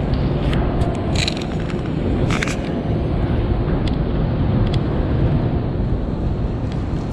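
Steady low rumble of subway platform background noise, with a couple of short clicks about one and two and a half seconds in.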